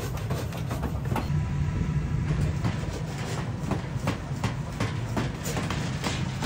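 Forge shop din: a steady low machine rumble with frequent sharp metallic knocks, from a power hammer and metal being handled.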